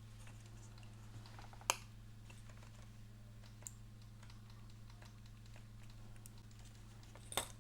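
Faint small clicks and taps of an IC chip's metal pins against a chip socket as the chip is pressed and worked in; the pins are not lining up. A sharper click comes a little under two seconds in and another near the end, over a steady low hum.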